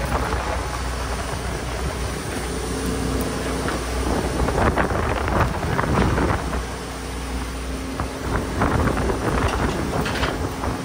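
Fishing boat's engine running with a steady low hum, with wind on the microphone. Irregular short knocks and rushing noises come about halfway through and again near the end.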